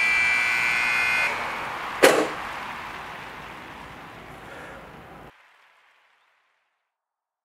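A steady high electronic beep for about a second and a half, then a single sharp hit about two seconds in that rings out and slowly fades. All sound cuts off about five seconds in.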